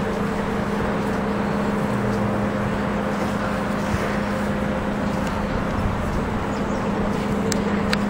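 Wind buffeting the microphone at a steady level, over a low steady hum.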